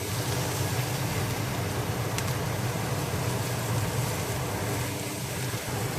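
Beef burger patties and an egg frying in a pan: a steady sizzle over a low steady hum, with a single click about two seconds in.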